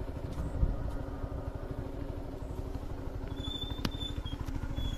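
Motorcycle engine running steadily with a low, even beat as the bike rides slowly up the road towards the listener.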